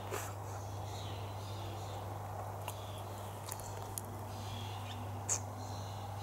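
Outdoor ambience: a steady low hum under faint bird chirps, with several sharp clicks and knocks, the loudest about five seconds in, as the camera is handled.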